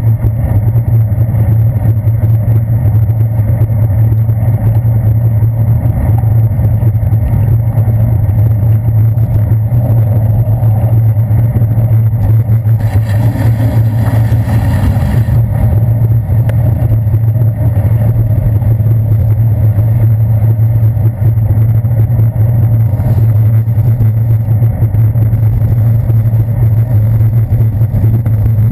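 Steady low rumble of a bicycle rolling over wet city pavement, picked up by a handlebar-mounted GoPro Hero 2 camera, with the noise of traffic around it. A hiss comes in about 13 seconds in and lasts about two seconds.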